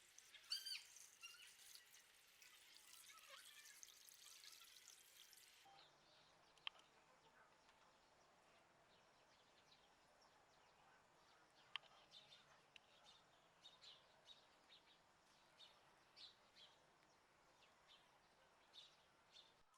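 Near silence with faint outdoor background: birds chirping, most clearly in the first second, then a few scattered faint chirps and two brief sharp ticks.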